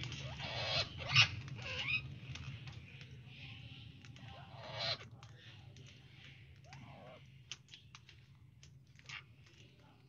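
A small flock of Puerto Rican parrots chattering to each other: scattered short squawks, clicks and bending calls, busiest in the first couple of seconds and sparser later on, heard through a video call's audio.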